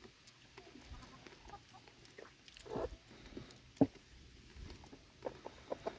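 Chickens clucking faintly: scattered short clucks, a few near the middle and a quick run of them near the end.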